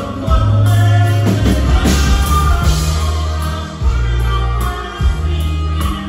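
Live norteño band playing amplified: a strong bass line that changes note every second or so, with drum kit and guitars over it.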